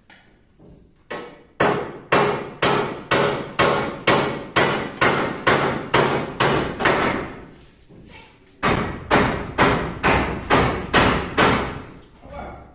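A hammer driving nails into timber ceiling brandering battens fixed overhead to the roof trusses. There are even blows about two a second, each with a short ring, in two runs split by a pause of about a second a little past halfway.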